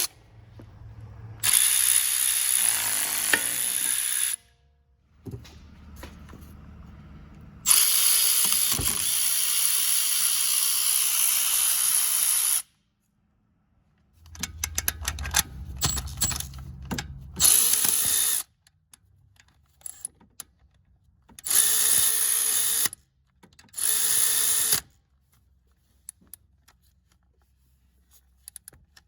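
Milwaukee M12 Fuel 3/8-inch extended-reach cordless ratchet running in five bursts of high-pitched motor whirring, the longest about five seconds. Clicks and clatter come between the runs.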